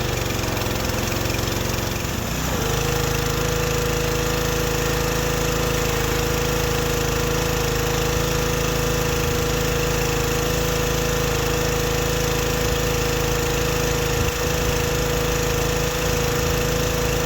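Kohler XT7 single-cylinder engine of a Husky pressure washer running, driving its newly replaced pump. The pitch shifts for the first couple of seconds, then settles into a steady drone with a hiss over it. The washer is running again with the new pump.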